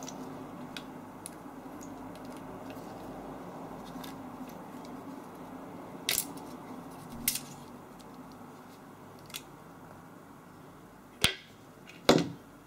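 Small metal parts being handled while an electric motor's brush housing is taken apart: a few sharp metallic clicks and clinks, mostly in the second half, over a steady low background noise.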